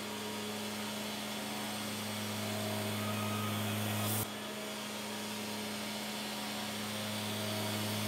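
Wood-Mizer portable bandsaw mill cutting through a cherry cant: a steady machine hum with the hiss of the blade in the wood. It grows slowly louder as the saw head comes nearer, drops back abruptly about four seconds in, and builds again.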